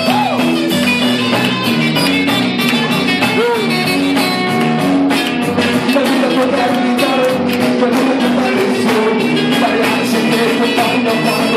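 Live rock band playing loudly, with drum kit, bass and guitar.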